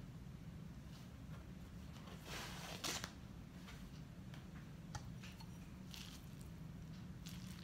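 Soft papery rustle of a thin egg roll wrapper being peeled off the stack about two to three seconds in, then a few light clicks of a metal spoon against the wok as filling is scooped, over a low steady hum.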